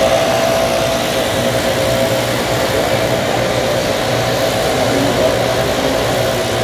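A steady engine drone with a constant whine running through it, level throughout.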